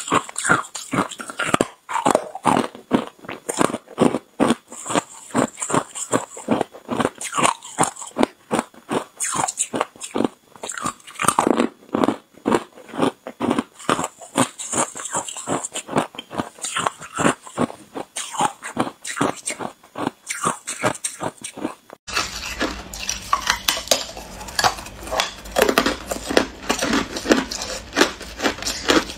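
Hard clear ice being bitten and crunched between the teeth, a rapid, irregular run of sharp crunches close to the microphone. A low steady hum comes in behind the crunching about three-quarters of the way through.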